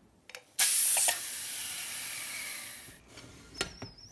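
Stainless-steel pressure cooker venting its remaining steam pressure: a sudden loud hiss about half a second in that eases after half a second, runs on steadily and dies away around three seconds in. Then a few sharp clicks and a brief high squeal as the lid is unlocked.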